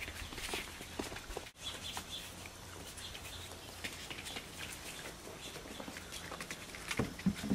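Puppies moving about on a porch: scattered paw taps and scuffles on mat and concrete, with a few faint high chirps and a couple of louder knocks near the end.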